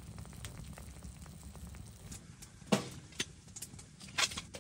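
Steak and green beans sizzling in a cast-iron skillet on a wood stove, with a steady fine crackle. A sharp knock sounds just past halfway, and another near the end.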